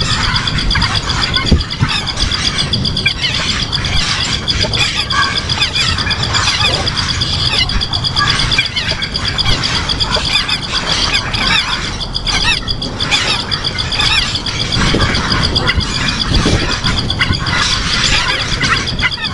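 Birds chirping and squealing, over a steady, high, rapidly pulsing trill and a low rumble.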